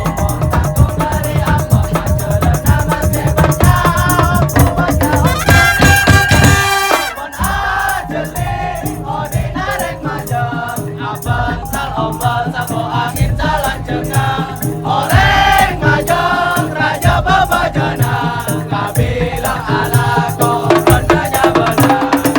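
Madurese tong-tong music: a percussion ensemble playing a dense, fast rhythm with a melody over it. The low drums drop out about seven seconds in and come back in short stretches.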